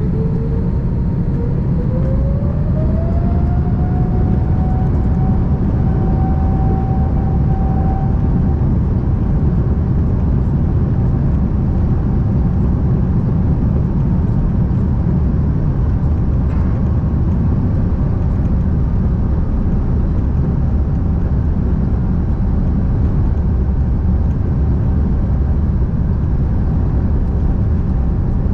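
Rolls-Royce Trent 7000 turbofans of an Airbus A330-900neo spooling up to takeoff thrust. A whine rises in pitch over the first few seconds and then holds steady over a loud, steady rumble of the takeoff roll.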